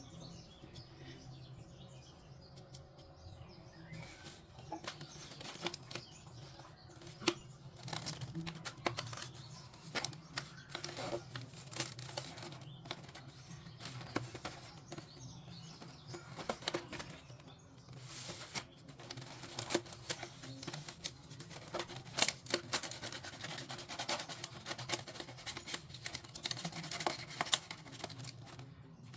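Toy kitchen pieces and their packaging being handled in an unboxing: irregular light clicks, taps and some crinkling and tearing, over a steady low hum.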